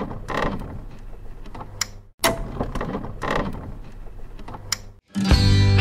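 Logo intro sound effect with a mechanical, creaking character, played twice: each pass is a sharp hit, a swelling whoosh and a sharp click. Music begins near the end.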